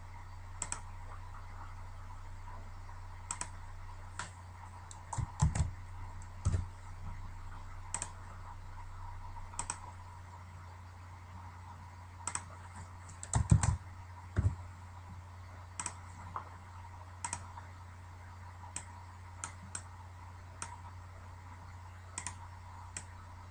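Computer keyboard keystrokes and mouse clicks come as scattered single clicks, with two short, louder flurries about a quarter and again about three fifths of the way through. A faint steady low hum runs underneath.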